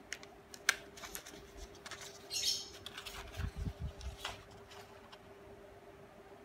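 Scissors snipping through sheets of printed paper, with the paper rustling and being handled: scattered short snips, a brief rustle about two and a half seconds in, then a few soft dull bumps as the sheet is lifted and bent.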